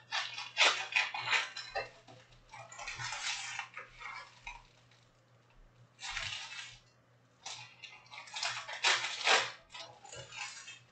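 Trading cards and card packs handled on a tabletop: several short bursts of rustling, sliding and light clattering with pauses between them, over a faint steady low hum.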